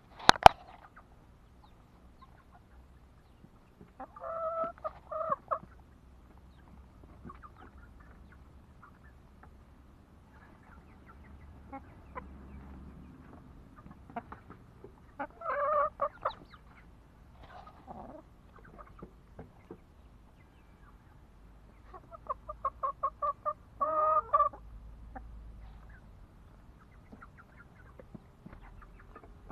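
Chickens clucking in three bouts of quick repeated notes, with quieter stretches between them. A single sharp click sounds just after the start.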